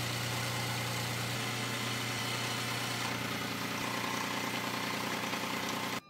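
Scroll saw running steadily while cutting curved circles out of a wooden block: an even motor hum with a buzz. It cuts off suddenly near the end.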